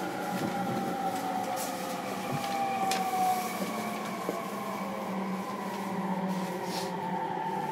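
Cabin running sound of a JR East E231-series electric train: the VVVF inverter and traction motor whine, several tones gliding slowly down in pitch as the train slows, over steady wheel and rail rumble.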